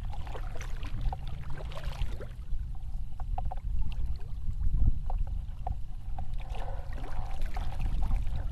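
Kayak paddle strokes: a double-bladed paddle dipping and pulling through the water on alternate sides, with scattered drips and light splashes over a steady low rumble.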